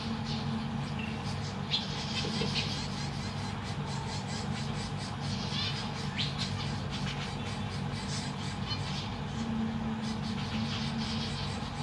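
Zebra finches giving a few short, high calls now and then over a steady low hum.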